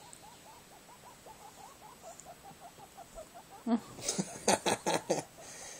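Two small pets playing close to the phone: a quick run of soft, squeaky little grunts, about four or five a second, then a knock and a burst of scuffling and rustling about four seconds in as they tussle.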